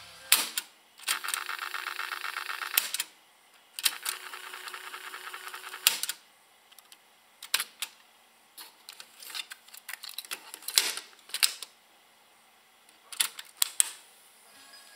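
JVC KD-X2 cassette deck transport: sharp key clicks, then the tape fast-winding with a steady whir twice, about two seconds each, stopped by a click each time. Then a run of clicks and knocks as the cassette is ejected, swapped and the door shut.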